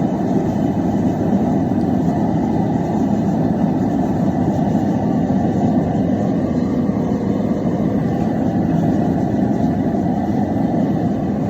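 Propane forge running on a single burner, a steady unbroken noise with no change in level, while a fluxed steel billet heats toward forge-welding heat.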